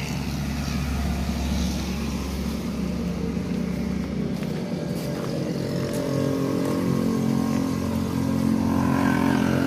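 A motor vehicle engine running steadily nearby, its hum growing a little louder near the end.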